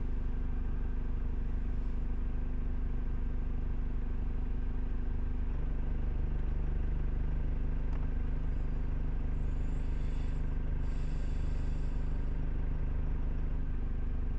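Steady low mechanical hum, like a running motor, with a brief faint high-pitched sound about ten seconds in.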